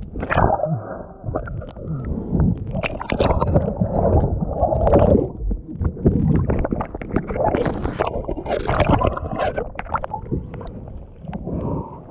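Rough water sloshing, gurgling and splashing against a kayak, with many irregular sharp slaps and knocks.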